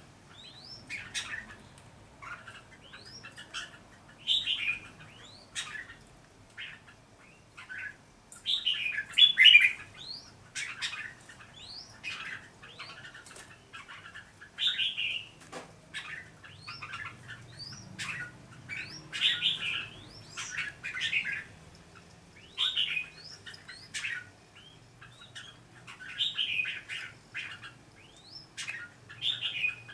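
Red-whiskered bulbuls calling in short bursts of chirpy, rising whistled notes, repeated every two to three seconds.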